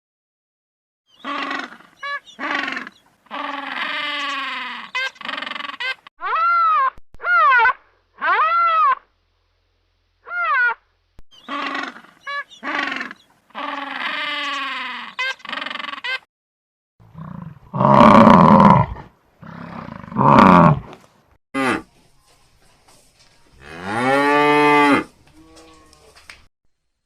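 A run of animal calls, one after another: many short calls rising and falling in pitch over the first half, then a few louder, lower calls and one long low call near the end.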